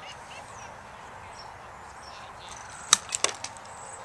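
A hard plastic wiffle ball impact: one sharp crack about three seconds in, then three lighter clicks in quick succession, over steady outdoor background noise.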